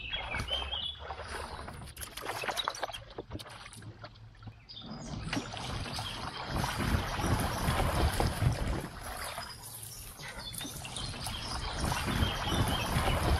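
Bicycle and its box trailer being ridden through a shallow stream, the wheels churning and splashing through the water. The splashing swells about halfway through and again near the end.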